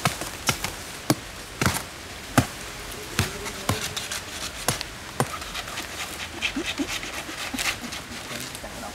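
A machete chopping into the fibrous crown of a felled coconut palm: about nine sharp strikes over the first five seconds, then a run of smaller crackles and tearing as the leaf sheaths are pulled apart.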